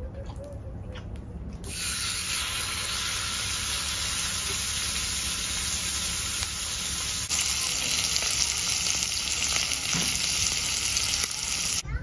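A slice of marinated pork sizzling as it fries in a hot Yanagi Sori Nambu cast iron mini pan. The sizzle starts about two seconds in, grows louder around seven seconds, and cuts off suddenly near the end.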